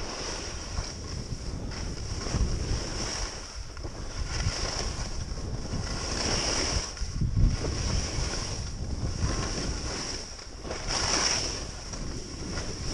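Wind rushing over an action camera's microphone while skiing downhill, mixed with the hiss of skis sliding on snow, swelling and fading every second or two.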